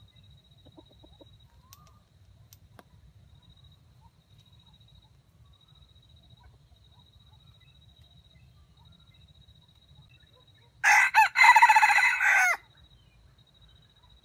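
A red junglefowl rooster crows once near the end, a short, clipped crow of under two seconds.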